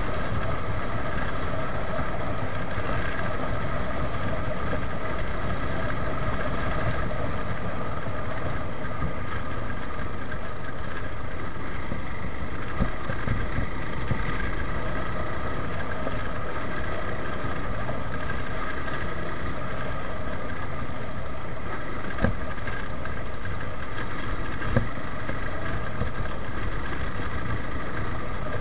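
Suzuki Gixxer's single-cylinder engine running steadily while the motorcycle is ridden along at an even pace, with a low rumble underneath and a couple of light knocks in the last third.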